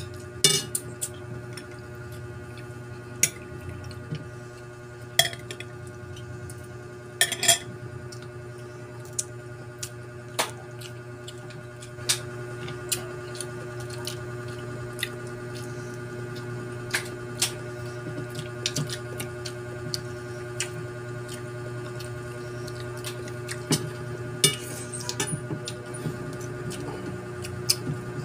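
Eating at a table: scattered clicks and taps of shrimp and mussel shells and a spoon against plates as the seafood is peeled and eaten by hand, with a few brief louder noises, over a steady low hum.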